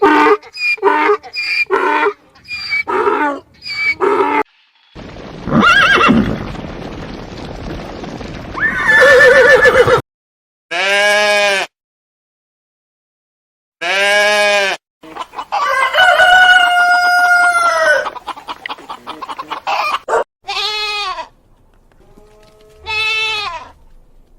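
Chickens and a rooster calling in a series of separate clips: a quick run of short clucks, then a noisy stretch, then several pitched calls including one long rooster crow.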